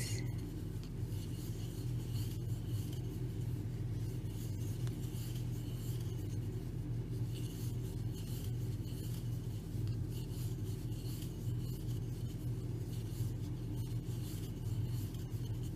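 Soft rubbing and scratching of a crochet hook drawing yarn through stitches as double crochets are worked. Under it runs a steady low hum.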